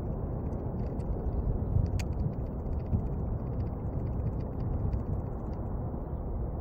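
Steady low rumble of a distant Airbus A321's jet engines as it lands, mixed with wind on the microphone. Faint scattered ticks run through the middle, with one sharp click about two seconds in.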